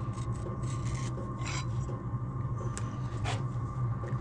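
Short, irregular scratching strokes on a small aluminium panel as a guide line is marked out on it, over a steady low hum.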